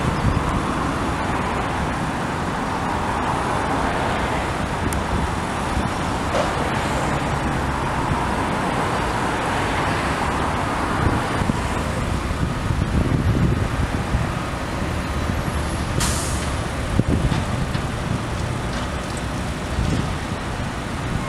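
Heavy diesel machinery running steadily as a Caterpillar 336E excavator works a demolition grapple, with a few knocks from debris being handled and one brief sharp burst of noise about three-quarters of the way through.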